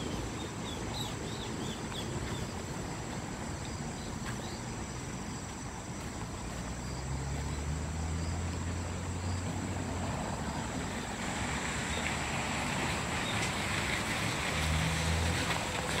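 Outdoor ambience: a steady high-pitched drone under an even hiss, with a low rumble that swells twice, and a few faint short chirps in the first couple of seconds.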